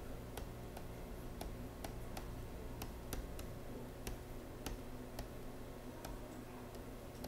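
Faint, uneven clicks, about two or three a second, from a stylus tapping and writing on a digital pen surface, over a low steady hum.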